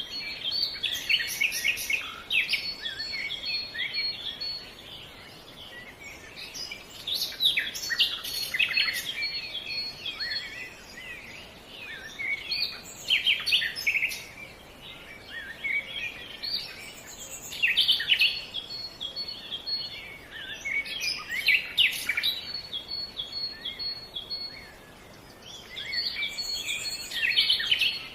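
Songbirds singing: phrases of quick, varied high chirps and trills come in bursts every few seconds, while another bird repeats one thin high note in rapid series at times, over a steady background hiss.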